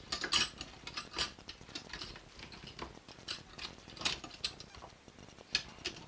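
Metal hand tools and bits clinking and knocking as they are packed into a small hard plastic case, in irregular, scattered clicks and clanks.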